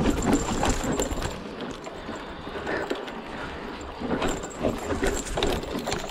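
Hardtail mountain bike rolling down a dirt forest trail: tyres crunching over earth and roots, with irregular knocks and rattles from the bike over the bumps.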